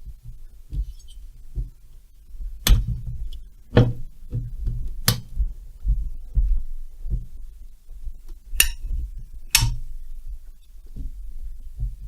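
Hand work on a Stihl 070 chainsaw's engine as it is taken apart: about five sharp metallic clinks spread out at irregular gaps among softer low knocks and bumps of handling.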